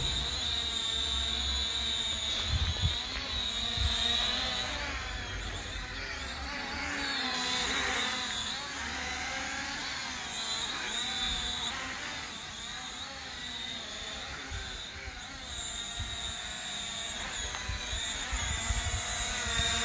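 Cheap mini foldable quadcopter drone (model 998) hovering and manoeuvring low: a steady high-pitched whine from its motors and propellers, the pitch wavering up and down as the throttle changes.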